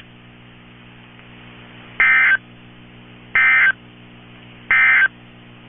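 Emergency Alert System end-of-message code: three short, identical warbling digital data bursts about a second and a half apart, signalling the end of the tornado warning broadcast. A steady low hum from the receiver runs underneath.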